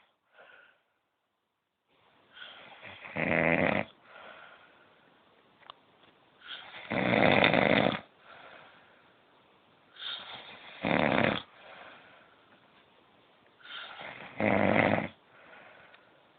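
A sleeping man snoring: four loud snores, one every three and a half to four seconds, each led in by a quieter breath. The snoring starts about two seconds in.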